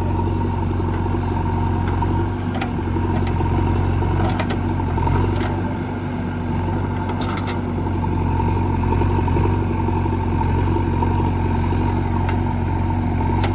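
Diesel engines of a JCB 3DX backhoe loader and a tractor running steadily, with a few faint clanks scattered through.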